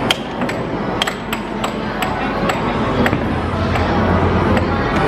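Air hockey game in play: the plastic puck clacking against the players' mallets and the table rails in quick, irregular sharp hits, about two or three a second.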